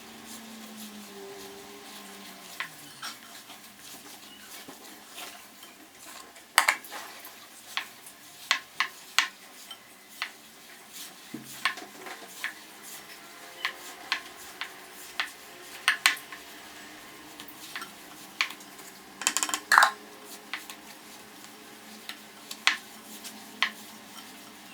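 Utensil clinking and scraping against a mixing bowl as flour is worked into sablé cookie dough, with irregular sharp knocks. The loudest knocks come about six and a half and twenty seconds in.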